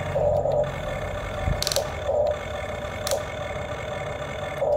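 Radio-controlled toy excavator's electric motors whining in short spurts as the boom and bucket move, with a couple of sharp clicks.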